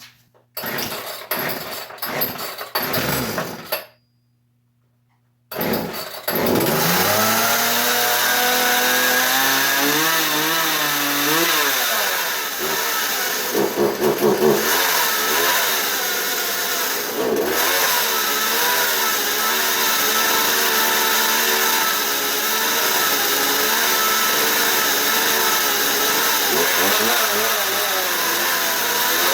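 Small two-stroke Poulan chainsaw pull-started with several short tugs, catching about six seconds in and then running steadily, its engine speed rising and falling a few times. The saw runs poorly and is being tuned.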